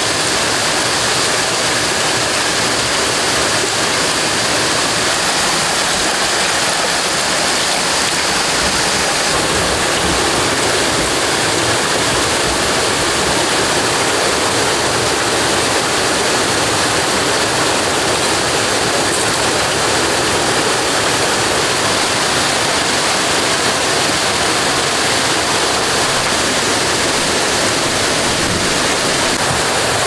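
Steady rush of a waterfall and the rocky stream below it.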